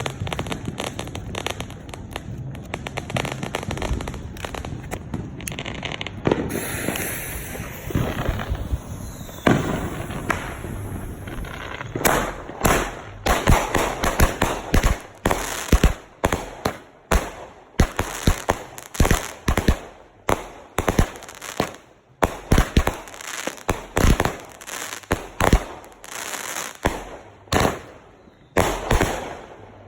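200-gram consumer fireworks cake firing: dense crackling for about the first twelve seconds, then a long run of sharp bangs, one or two a second.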